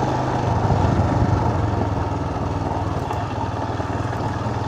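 Royal Enfield Himalayan's single-cylinder engine running steadily at low revs in second gear as the motorcycle climbs a steep dirt road.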